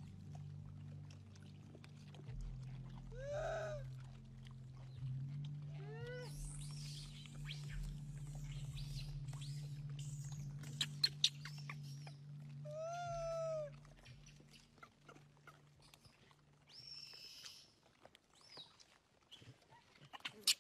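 Macaques calling: three arched, wavering coo-like calls about three, six and thirteen seconds in, with a few sharp clicks near the middle, over a steady low hum.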